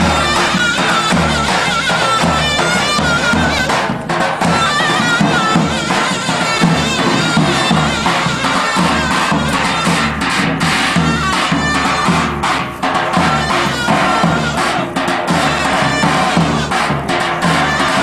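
Live Turkish folk music from a davul and zurna: the big double-headed davul drum beats a steady rhythm under a shrill, wavering reed-pipe melody.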